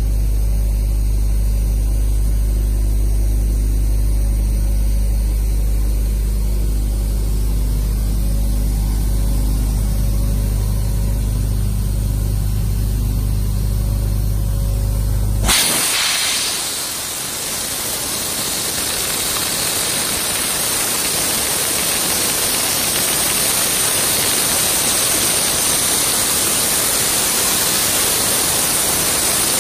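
A steady low machine hum, which gives way suddenly about halfway through to the steady hiss of a wet ice-blasting nozzle spraying. The spray is stripping years of paint build-up off a Kärcher steam cleaner's plastic body.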